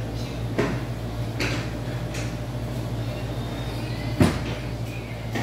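Fabric lifting straps being handled and fitted around the wrists: a few short scrapes and rustles, and one sharper knock about four seconds in, over a steady low hum.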